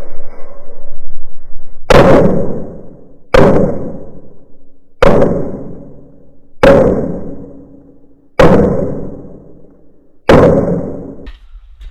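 Six slow, deliberate 9mm pistol shots from a Glock 19, each about one and a half to two seconds apart and each followed by a long ringing echo.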